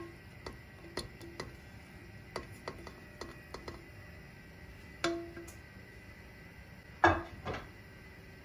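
A spatula tapping and scraping against a dish as chopped cooked vegetables are scooped into a mixing bowl: a run of light clicks, some ringing briefly, with louder knocks about five and seven seconds in.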